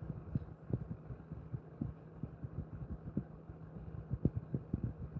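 Soft, irregular low thuds and rubbing as hands massage a dog's head and neck while it lies on a raised mesh pet cot. A steady low hum runs underneath.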